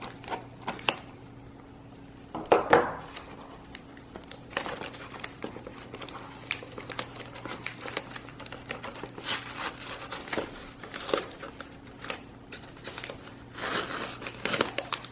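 Packaging around a shipped plant crinkling and rustling as it is handled and unwrapped, with irregular crackles and louder bursts about two and a half seconds in and near the end.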